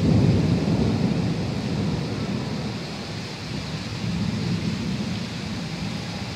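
Thunder rumbling, loudest at the start and fading over a couple of seconds, then swelling again about four seconds in, over a steady hiss of wind and rain.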